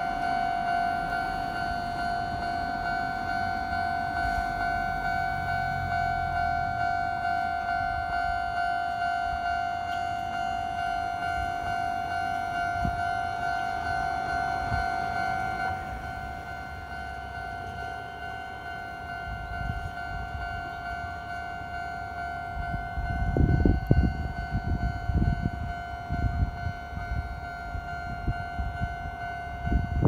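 Japanese railway level-crossing alarm ringing a rapid, evenly repeating two-tone clang while the barrier arms come down, signalling an approaching train. The alarm drops in level about halfway through, and a low rumble of the approaching train builds near the end.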